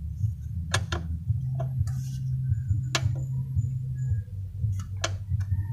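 A handful of scattered sharp clicks and taps of hand tools on the motorcycle's rear wheel fittings, over a steady low hum.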